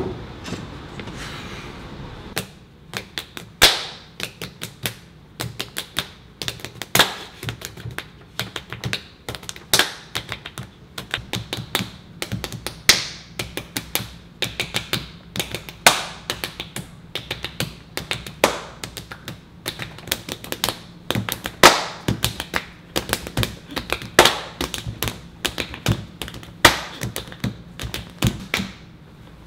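Rapid sharp taps and slaps of hands playing rock-paper-scissors, round after round. A louder tap comes about every three seconds, with quicker smaller ones between, over a low steady room hum.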